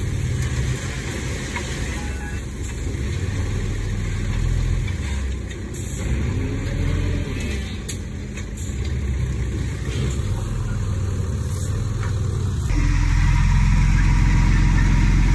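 Dump truck's diesel engine running as the tipper bed is raised to unload dirt. About 13 seconds in the engine grows louder and deeper.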